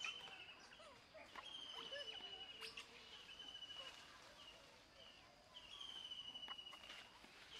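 Faint forest ambience: a high, pulsing trill repeats several times, each lasting up to about a second, with a few faint clicks and soft calls under it.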